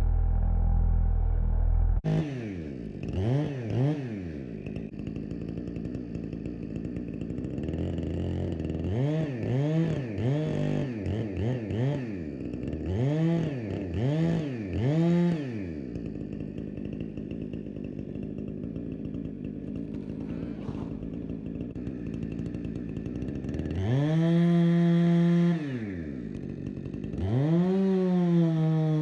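Husqvarna 455 Rancher two-stroke chainsaw blipped again and again, its engine pitch swooping up and down. It then settles to a lower, steady run and is held at high revs twice near the end.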